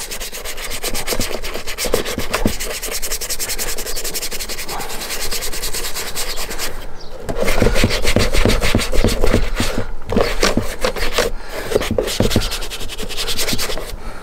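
Small bristle brush scrubbing color-restoring cream into a leather boot's upper in rapid back-and-forth strokes, with a few brief pauses and louder scrubbing in the second half.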